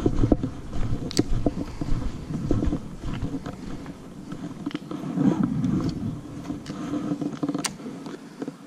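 Wind rumbling on a camera microphone, with footsteps and scattered small knocks and clicks. The wind eases about halfway through, leaving a low steady hum that fades near the end.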